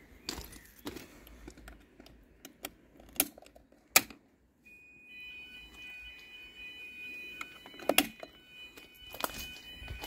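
Footsteps and sharp handling clicks. Then, about halfway through, a home-built wireless fire alarm system's electronic sounder starts a steady, high-pitched alarm tone that keeps going.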